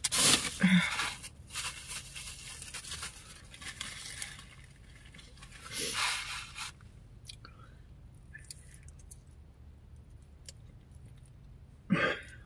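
Close-up eating sounds: chewing and tearing meat from a cold oven-baked breaded chicken drumstick, with crackly scraping noises and a louder burst about six seconds in. Near the end comes a brief vocal sound as gristle is worked out of the mouth.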